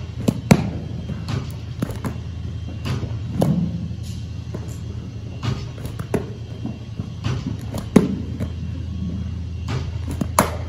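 Baseballs striking a catcher's mitt, chest protector and shin guards and dropping onto artificial turf during rapid-fire blocking, heard as irregular sharp thuds about once a second over a steady low hum.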